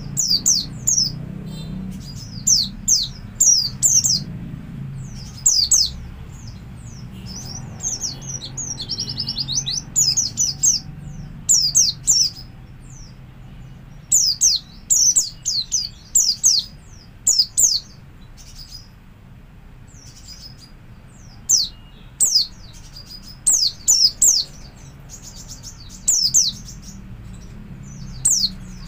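White-eye (pleci) singing in the ngalas style: clusters of quick, high-pitched sweeping chirps every second or two, with a short rapid trill about eight to ten seconds in. A faint low hum runs underneath.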